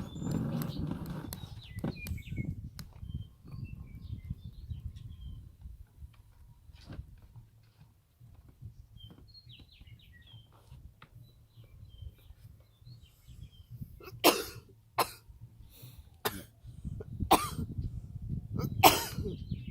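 A person coughing in a short bout of five or six loud coughs in the last few seconds, after a quiet stretch with only faint clicks and small chirps.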